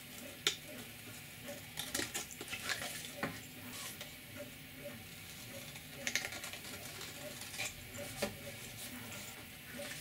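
Hand deburring tool scraping around the edges of freshly drilled holes in a Lexan polycarbonate panel, in short, scattered strokes with a few light clicks.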